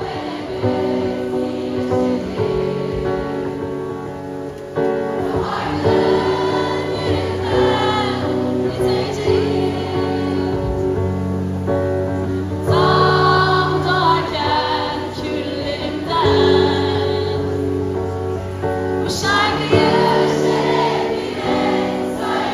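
Live amplified band music: a woman singing over electric guitar, bass and drums through a PA, with other voices joining in on the singing.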